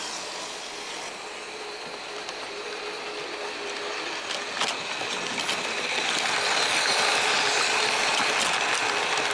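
Märklin H0 model electric locomotive's motor whirring steadily with a thin whine and some clicking from the running gear, while the locomotive itself barely moves on the points. It gets louder about six seconds in. The locomotive can no longer run properly because its bogie guard has broken off.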